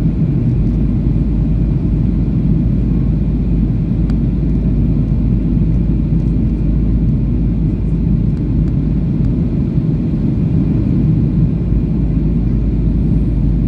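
Steady low rumble inside the cabin of a Boeing 737-800 in flight: CFM56 engine noise and airflow heard from a window seat behind the wing.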